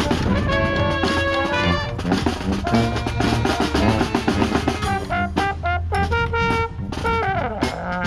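Street brass band playing: trumpets and trombones over sousaphone bass and snare drum, with a steady drum beat. Near the end the horns slide down in pitch.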